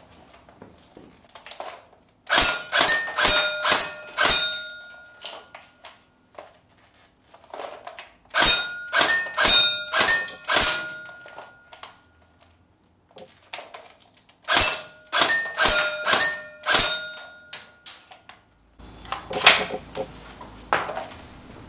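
Tokyo Marui FA-MAS electric airsoft gun firing single shots at steel plate targets, each hit a sharp clack with a brief metallic ring. The shots come in three quick strings of about six, a few seconds apart, with busier clattering near the end.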